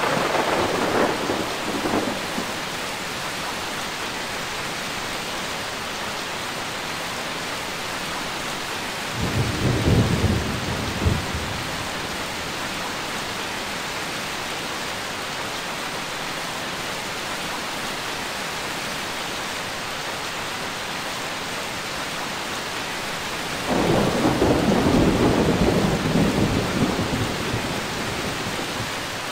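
Steady rain falling, with thunder rumbling three times: briefly right at the start, a deep rumble about ten seconds in, and a longer, louder roll lasting several seconds near the end.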